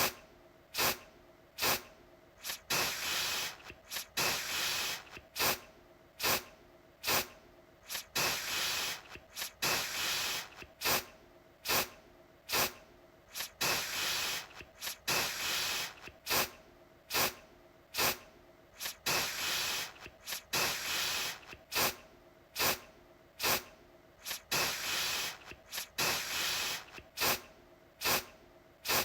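Aerosol deodorant can spraying in repeated bursts. Most are short sharp spurts, roughly one a second, with some longer hisses of up to about a second mixed in.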